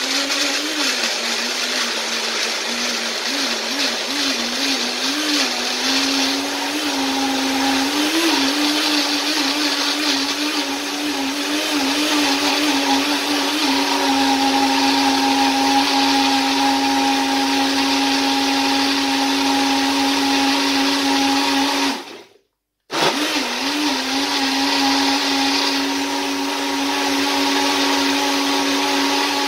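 Willsence personal bottle blender running, its motor blending a thick green smoothie of spinach, avocado, banana and blueberries. The motor's pitch wavers for the first several seconds as the load churns, then holds steady. About three-quarters of the way through it stops for under a second and starts again.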